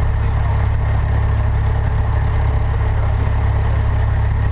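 Cessna 152's Lycoming O-235 four-cylinder engine running steadily, a constant low drone as heard in the cockpit.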